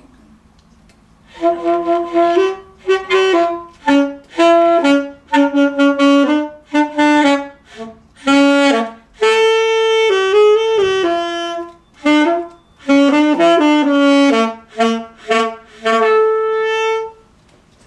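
A young student playing a saxophone: a run of separate notes, mostly short, with a few held longer near the middle and end, starting about a second and a half in and stopping shortly before the end.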